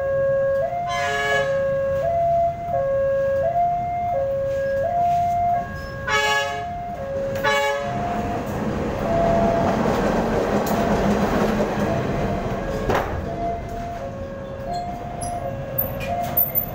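Railway level-crossing warning signal sounding a steady two-tone alarm, switching between a lower and a higher tone about every two-thirds of a second, with short horn blasts about a second in and around six to eight seconds in. From about eight seconds in, the rushing rumble of a passing train swells and fades over some five seconds, and the alarm carries on faintly near the end.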